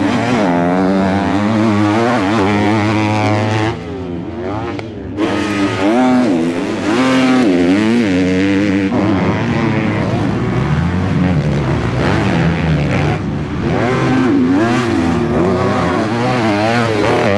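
Four-stroke motocross bike engines revving hard, pitch climbing and dropping again and again as the riders work the throttle and shift gears, with a quieter stretch about four seconds in.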